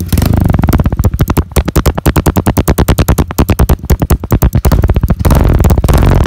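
Honda CG 125 Titan's single-cylinder four-stroke engine revved through an SFX aftermarket exhaust. For about five seconds it runs in rapid, uneven pulses with sharp swings in loudness and the muffler popping and crackling, which the owner calls popping a lot. It then settles to a steadier run.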